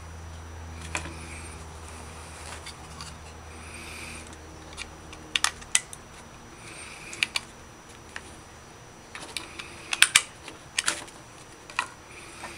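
Handling noise: scattered sharp clicks and taps as a small aluminium flashlight and its nylon holster are picked up and set down on a wooden table. They are busiest around five to six seconds in and again from about nine to twelve seconds in, over a faint low hum in the first half.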